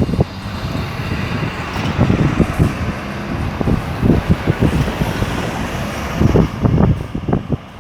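City street traffic: cars and buses running past, with many short, irregular low rumbles.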